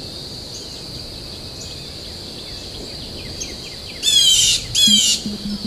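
A bird of prey screeching twice, loud and harsh, about four seconds in, over a steady high whine and faint bird chirps. A low pulsing music tone begins just after the first screech.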